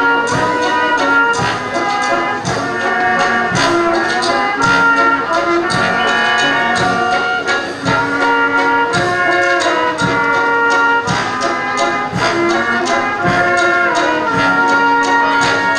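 Brass band playing a waltz live, sustained chords and melody over a steady beat.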